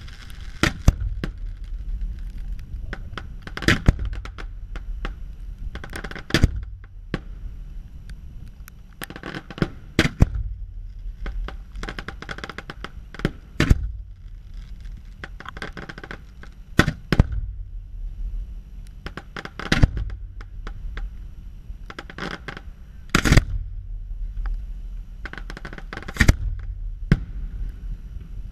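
Fireworks display: aerial shells bursting in sharp bangs at irregular intervals of about one to three seconds, sometimes two close together. Crackling sparkle effects sound between the bangs.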